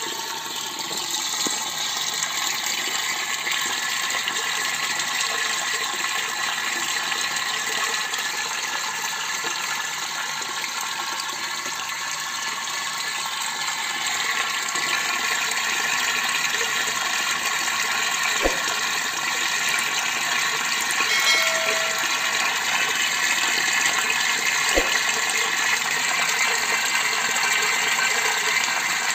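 Water jetting from a PVC inlet pipe into a plastic water drum, a steady rushing splash as the tank fills.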